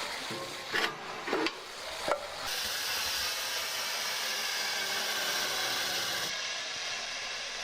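A hand-driven rotating drum machine working wood: a few sharp wooden knocks, then from about two and a half seconds a steady rasping, scraping hiss.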